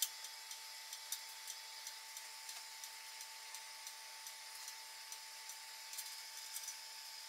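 Faint irregular metallic ticking, a few clicks a second, over a steady high hiss from an aluminium mess tin sitting on a homemade can alcohol stove whose flame has just gone out. The sound is sped up to triple speed.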